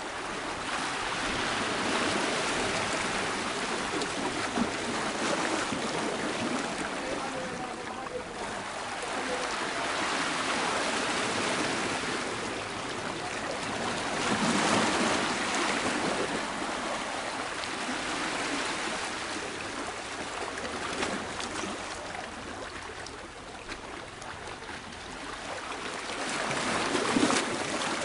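Sea waves washing against a rocky shore: a steady rushing surf that swells and eases in several surges.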